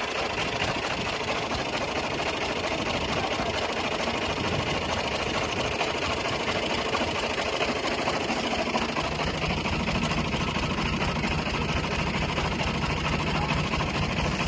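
Restored Clayson 8080 combine harvester running while harvesting wheat: a steady engine with fast, even mechanical clatter from the working machinery. A lower hum grows stronger about nine seconds in.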